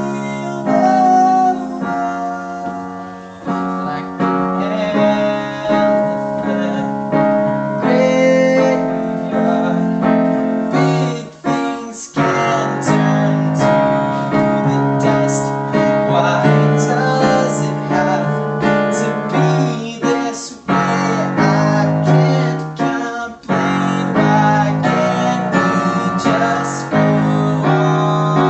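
A song played on piano, steady chords and melody notes, with a man's singing voice over it.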